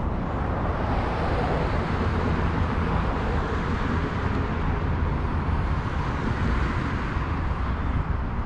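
Road traffic on an adjacent city street: a steady rumble and hiss, with a vehicle passing that swells and fades over several seconds.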